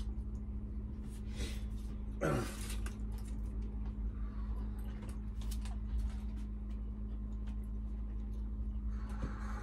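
Small clicks and rustles of eating from foil takeaway trays over a steady low hum, with a brief falling vocal sound about two seconds in.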